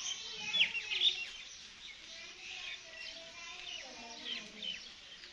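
Small birds chirping: many short, quick chirps that slide down in pitch, busiest in the first second or so and sparser afterwards.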